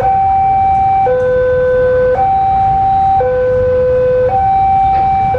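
Railway level-crossing warning alarm sounding two tones, high and low, that take turns about once a second, warning that a train is approaching.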